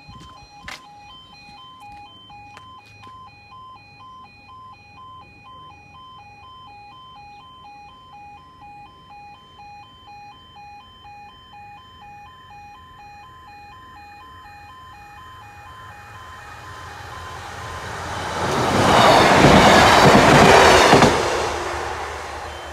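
Level crossing alarm sounding in repeated two-tone pulses, about two a second. A diesel multiple unit approaches and passes over the crossing: its rumble and wheel noise build up and are loudest a few seconds before the end.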